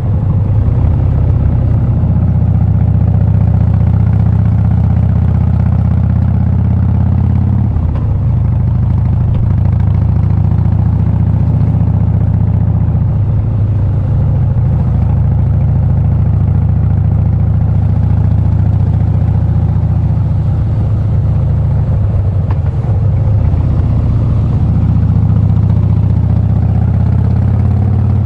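Harley-Davidson Breakout's V-twin engine running steadily under light throttle as the motorcycle rides along, with brief changes in engine note a few times as the throttle changes.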